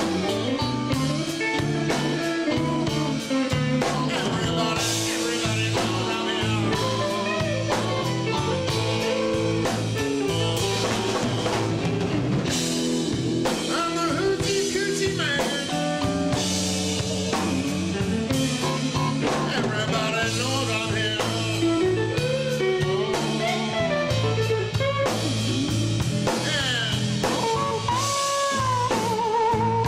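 Live blues band playing an instrumental passage: electric guitar lead with bent notes and wavering vibrato over a steady bass line and drum kit.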